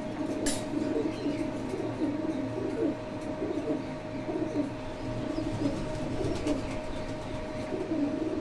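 Pigeons cooing in low, repeated calls, with a sharp click about half a second in.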